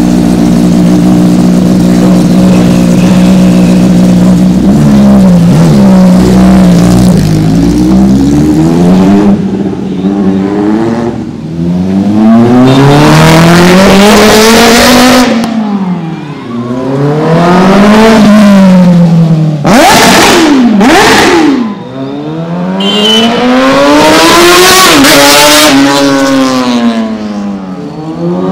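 Kawasaki ZX-10R inline-four superbike idling for a few seconds, then revved and ridden hard in repeated fly-by runs. The engine note climbs as it accelerates and falls away between runs.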